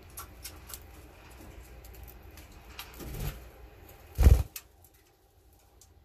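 Budgerigar pecking millet seed from a hand: scattered small beak clicks. About four seconds in, a brief loud flurry of wingbeats as the budgie takes off from the hand, then it goes quiet.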